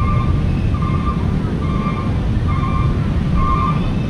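Steady low rumble of wind on the microphone. Over it, a short high tone repeats about once a second.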